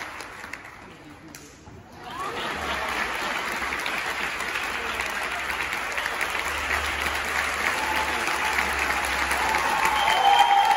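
A circus audience applauding steadily, starting about two seconds in after a short lull.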